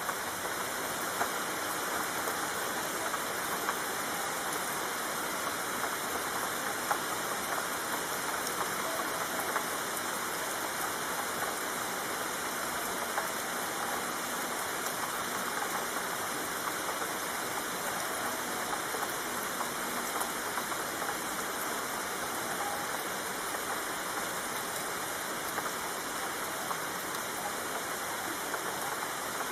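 Steady rain falling, an even wash of noise, with scattered sharper taps of individual drops.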